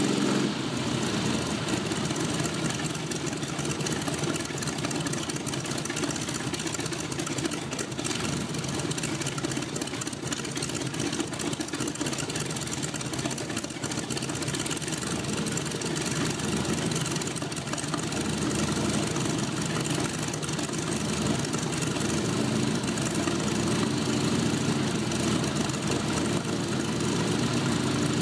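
Aircraft engine mounted on a car, running steadily at idle and turning its propeller, with a slight rise in level toward the end.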